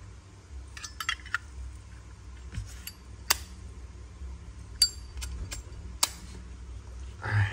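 Zippo lighters being handled: scattered sharp metallic clicks and clinks, a quick cluster about a second in and single loud ones later, one with a brief ring. A duller knock comes near the end.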